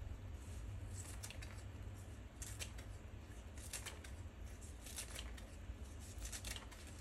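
A quiet run of short, crisp clicks and snips at irregular intervals, like small objects being handled or cut, over a steady low hum.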